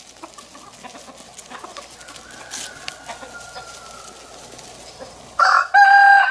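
A flock of chickens clucking faintly, then a rooster crows loudly starting about five seconds in.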